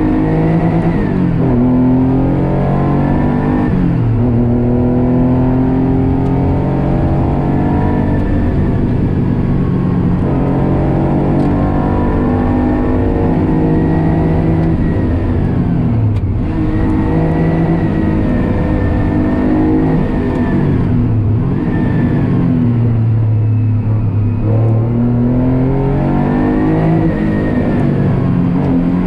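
Porsche 911 race car engine heard from inside the cockpit, driven flat out: its pitch climbs under full throttle and drops sharply at each gear change, over and over. About three-quarters of the way through it falls to a low, slower run for a tight corner, then pulls up again.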